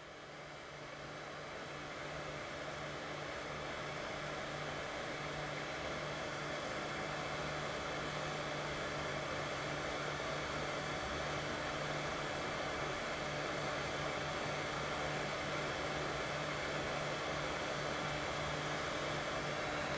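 Steady white noise for soothing a baby, a constant hiss with a low hum under it, fading in over the first few seconds and then holding level.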